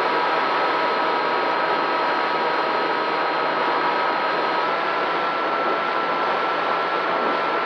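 FPV drone's electric motors and propellers running steadily, a constant whine over a rushing noise, the pitch stepping slightly higher about halfway through.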